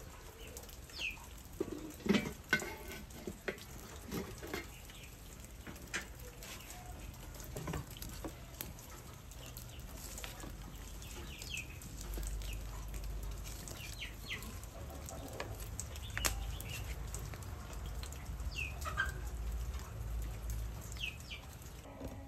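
Wood fire crackling, with small birds chirping now and then. A couple of sharp knocks come about two seconds in, and a low rumble sets in about twelve seconds in.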